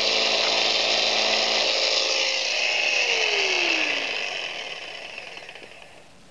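Jigsaw running as it cuts through aluminum-faced foam insulation board, with a steady motor hum. About three seconds in, the motor pitch falls and the sound dies away over the next couple of seconds as the saw winds down.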